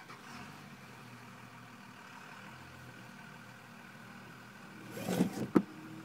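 Steady low hum inside a car; about five seconds in, a short burst and a sharp click as the seatbelt webbing is let go and snaps back into its retractor.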